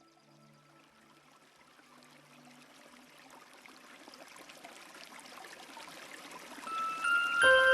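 Small steppe brook trickling and babbling, fading in from very faint to clearly audible. Near the end, chiming bell-like music comes in and becomes the loudest sound.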